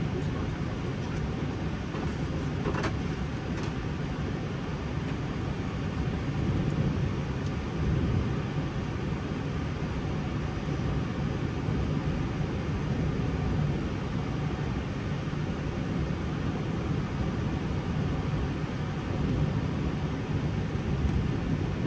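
Steady low rumble in the cockpit of an Airbus A320 taxiing on idle engines, with one brief click about three seconds in.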